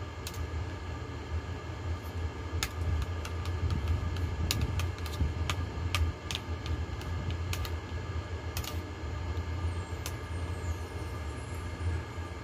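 Metal spoon and fork clinking and scraping on a plate, irregular sharp clicks bunched around the middle, over the steady low hum of a running air conditioner.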